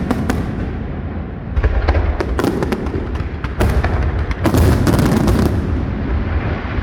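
Aerial fireworks going off: a rapid string of sharp bangs and crackles over a continuous deep rumble of booms, easing briefly about a second in and thickest just past the middle.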